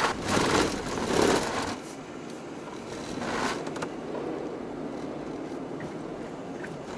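Cabin noise of a Honda Insight ZE1 rolling at walking pace over a ferry's car ramp, sped up four times: rattly bursts of tyre and body noise from the ramp's coarse anti-slip ridges in the first couple of seconds and again about three seconds in, then steady low rumble.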